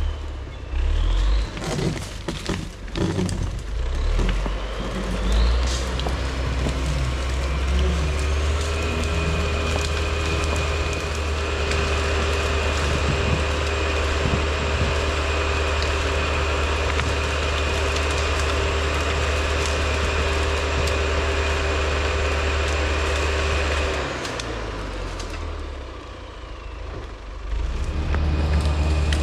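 LKT 81 Turbo skidder's diesel engine running steadily under load with a steady whine, winching a thick fir log up the slope. Knocks and cracks in the first few seconds; near the end the engine eases for a few seconds, then picks up again.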